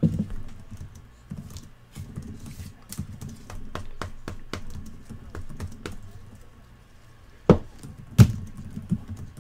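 Computer keyboard typing in quick, irregular clicks, with two louder knocks about seven and a half and eight seconds in.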